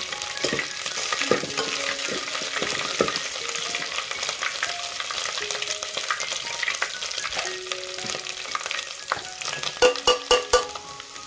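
Chopped onion sizzling in hot oil in an aluminium pot, stirred and scraped with a metal spatula. Near the end comes a quick run of sharp metal clinks as spice powders are knocked from a plate into the pot.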